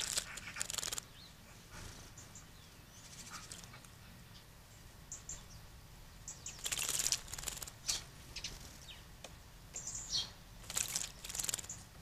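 Great tit bathing, splashing water with fluttering wings in three bursts: at the start, about seven seconds in, and again near the end. Faint short high chirps come in between.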